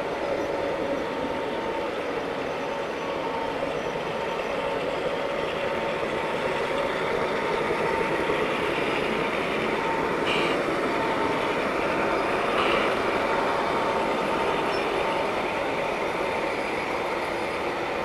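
G-scale model freight train running on an outdoor garden railroad: a steady rolling rumble of wheels on track with a faint hum, growing a little louder midway as the train comes nearer. Two short clicks come about ten and twelve seconds in.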